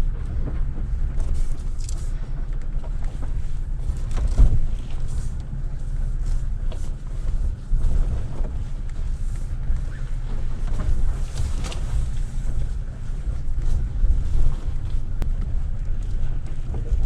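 Vehicle driving slowly over a rough off-road trail: a steady low rumble with scattered knocks and rattles, one louder knock about four seconds in.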